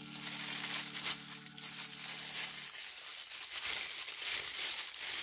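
A thin clear plastic bag crinkling and rustling as hands pull and bunch it off a desk lamp, a continuous run of quick crackles.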